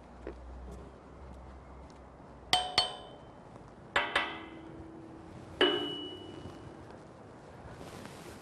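A metal wrench tapping a steel roller coaster beam in a structural check: two quick pairs of sharp metallic clinks, then a single strike that rings on.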